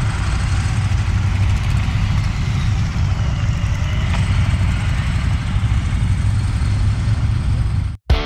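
Motorcycle engines idling with a steady low rumble, which cuts off abruptly near the end.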